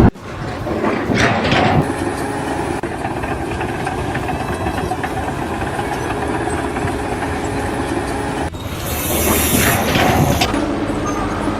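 Machine engines running steadily, in several short segments that change abruptly, with a louder stretch of noise near the end.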